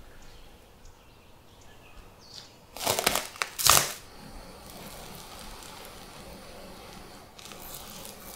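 A plastic cover crinkling loudly in two short bursts as it is pulled off a bowl of risen bread dough, then soft rustling, and more rustling near the end as hands press down into the dough to knock the air out.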